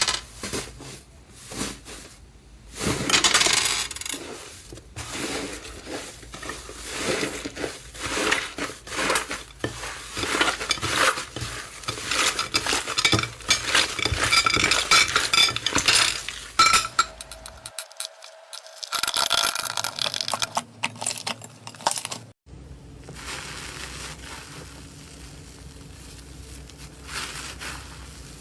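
Slime being squeezed and pressed by hand, giving dense runs of small sticky clicks and pops. It goes quieter and steadier for the last few seconds.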